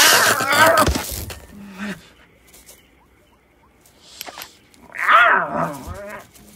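A cartoon cat character's yowling cry over a loud electric crackle as it is shocked, with a second wavering cat-like cry about five seconds in.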